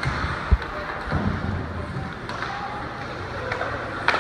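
Rink sound during an ice hockey game: a dull thud about half a second in and a sharp knock near the end, over faint voices.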